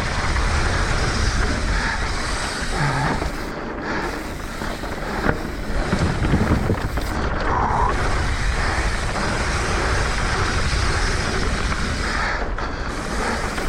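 Mountain bike descending a dirt trail at speed: steady wind buffeting the action-camera microphone over the rumble and rattle of the tyres and bike on the dirt.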